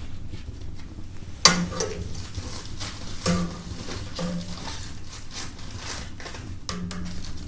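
Metal clanks and knocks from things being handled at a fireplace: one sharp clank about a second and a half in, another about three seconds in, then a few softer knocks.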